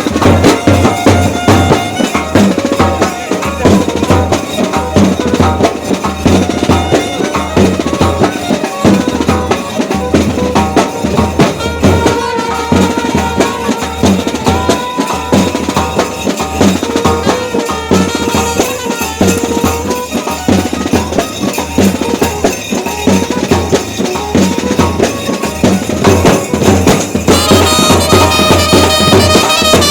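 Sanai-choughada band playing: shehnai (sanai) melody over fast, steady drumming on the choughada drums. The shehnai grows louder near the end.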